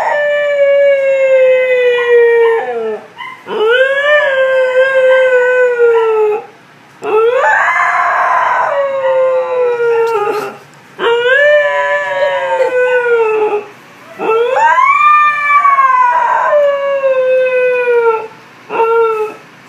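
Siberian husky howling: about six long howls, each a few seconds long, rising quickly in pitch and then sliding slowly down, with short breaths between them; the last one near the end is brief.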